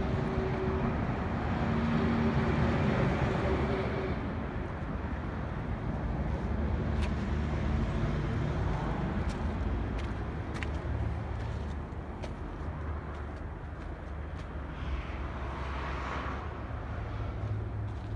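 Steady outdoor ambience: a low rumble with a broad hiss, a few faint clicks, and a swell of noise about three seconds before the end.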